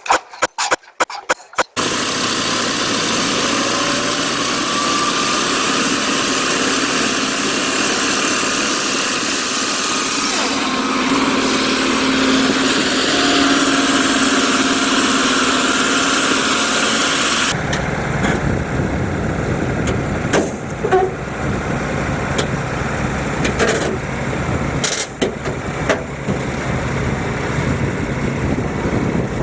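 An engine running steadily. About two-thirds of the way through it changes abruptly to a different, lower engine sound with a few scattered knocks.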